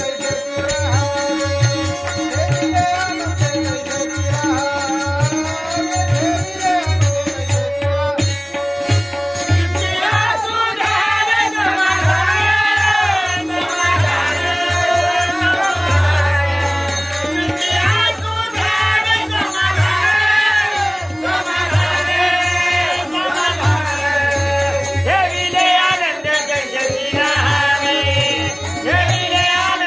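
Marathi devotional bhajan: voices singing over a steady drone, with regular deep drum strokes and small hand cymbals keeping the beat.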